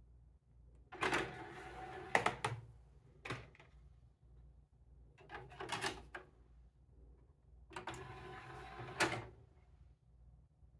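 Samsung DVD-V2000 DVD/VCR combo's disc tray motoring out about a second in and stopping with a clunk. A disc is then set in the tray with a few clicks, and about eight seconds in the tray motors back in and shuts with a clunk.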